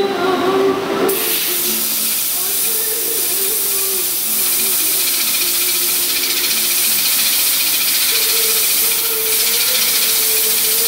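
Compressed-air blow gun hissing steadily as it blows at the cutting tool of a CNC lathe, starting about a second in. A lower, wavering tone from the lathe turning the steel workpiece runs beneath it.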